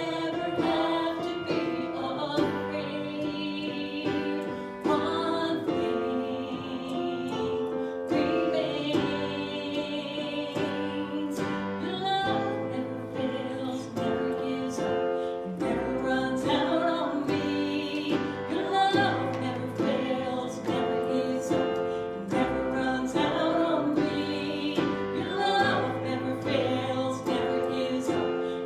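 Worship song: a group of voices singing over instrumental accompaniment, with held notes.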